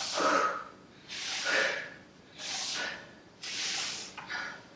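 A woman breathing hard from exertion during fast plank knee tucks: four forceful breaths, about one a second.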